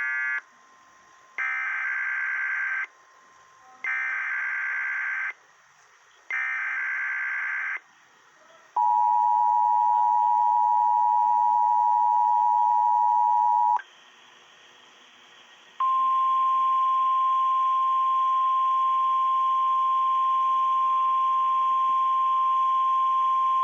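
Emergency Alert System tones: three bursts of screechy SAME digital header data, each about a second and a half with short gaps, then the two-tone attention signal held for about five seconds. After a brief pause, a single steady alert tone begins, the weather radio warning alarm tone.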